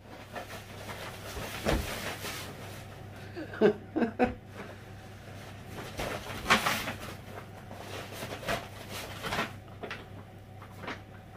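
A puppy rummaging in plastic shopping bags on a tiled floor: irregular rustling and crinkling of the bags, with a few sharper crackles, loudest about two seconds in, around four seconds in and past six seconds.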